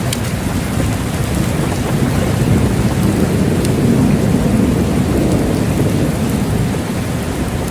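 Steady heavy rain with a low rolling rumble of thunder that swells in the middle and eases toward the end; a few sharp drop ticks stand out.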